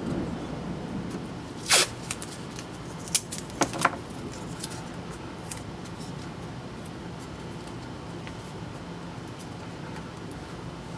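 Blue painter's tape being ripped and stuck down by hand: one loud rip about two seconds in, then a few shorter rips and crackles over the next two seconds. After that only a steady low hum remains.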